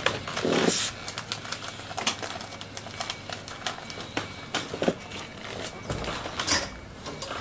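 Irregular clicking and short ratcheting rattles of plastic cable ties being pulled tight to fasten netting to a metal balcony railing, with a longer rattle under a second in and another near the end.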